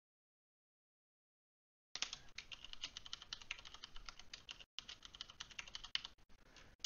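Keystrokes on a computer keyboard, rapid and uneven. Typing starts about two seconds in, breaks off briefly, then resumes as the password is entered and then re-entered to confirm it.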